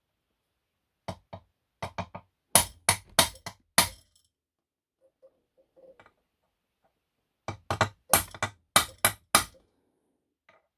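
A hammer striking a steel punch held on the aluminium bearing seat of a scooter engine crankcase, peening the seat rim to tighten a loose bearing fit. Two runs of quick, sharp blows, about eight each, separated by a pause of about three seconds.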